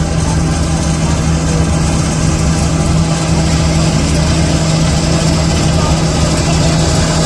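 Heavy diesel farm machinery engine running steadily at a constant speed, with a strong low hum.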